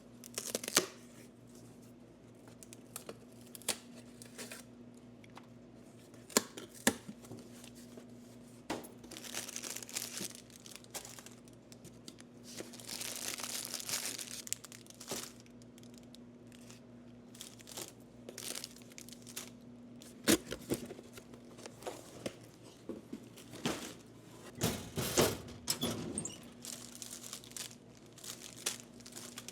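Plastic snack bags crinkling and rustling as they are handled, with scattered sharp clicks and knocks, over a steady low hum.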